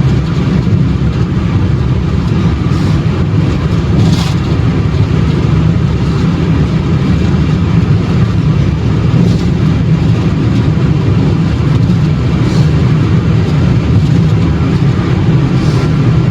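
Steady road and engine noise inside a car cabin cruising at highway speed, a constant low rumble.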